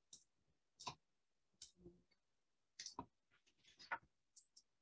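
Irregular faint clicks from a computer being operated, some single and some in quick little clusters, as a slide show is started.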